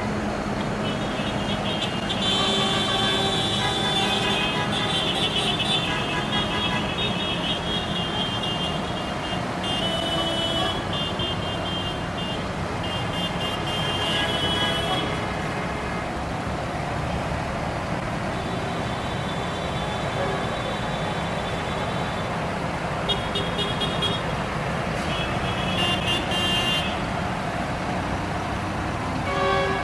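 Convoy of tractors driving past with engines running steadily, and vehicle horns sounding again and again, in blasts of one to three seconds.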